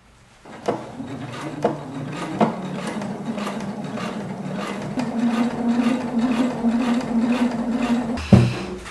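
Electric sewing machine stitching a rubber seal onto fabric, running steadily with a fast rapid-fire needle rhythm, louder from about halfway, then stopping with a thump near the end. The rubber seal is not feeding well under the presser foot and bunches up unevenly.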